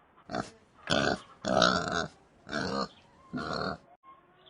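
Pig oinking five times in a row, each grunt short and separate.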